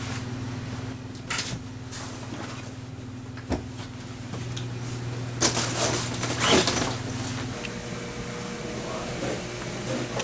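A low steady hum with rustling and a few knocks as someone handles a bag and belongings; the hum stops about seven and a half seconds in.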